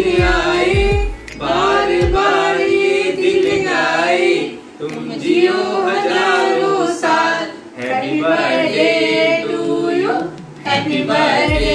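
Several voices, women's the most prominent, singing a birthday greeting song together in held phrases with short pauses for breath between them. A low beat thumps under the first couple of seconds and comes back near the end.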